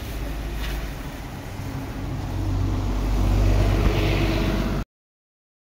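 A passing motor vehicle's engine rumbling, growing louder as it approaches, until the sound cuts off abruptly near the end.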